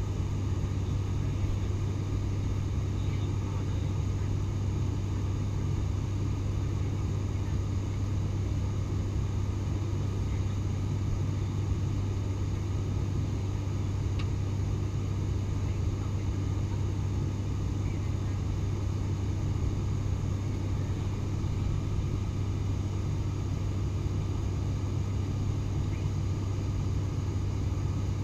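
Cabin drone of an ATR 72-600 turboprop in flight, heard from a window seat beside the propeller: a steady deep hum from the six-bladed propellers over the engine and airflow noise, unchanging in pitch and level.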